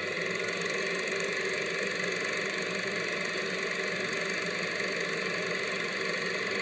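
Steady mechanical whirring and clatter of a film projector running, rising slightly at first and then holding level.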